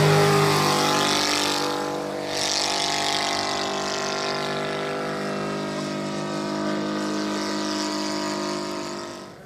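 Saito FG-84R3 84 cc three-cylinder four-stroke gasoline radial engine of a 1/3-scale Piper J-3 Cub model plane in flight. At the start its note drops in pitch as the plane passes close, then it settles into a steady drone as the plane flies away.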